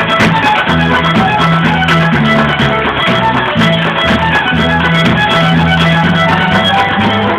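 Traditional fiddle tune with a low bass accompaniment, played briskly. A step dancer's shoes tap out a rapid rhythm on the stage along with it.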